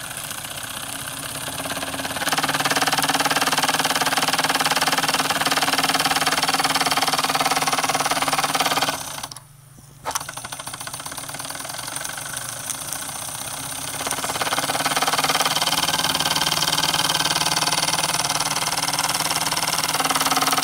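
Wilesco D10 toy stationary steam engine running fast, its slide-valve cylinder and flywheel setting up a loud, steady mechanical rattle, with the vibration buzzing against the ceramic tile under it. The noise gets louder about two seconds in, drops out almost completely for about a second near the middle, comes back quieter, and rises again about two-thirds of the way through.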